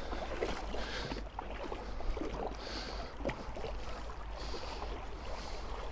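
Soft sloshing and lapping of river water, swelling gently every couple of seconds, with a few faint clicks.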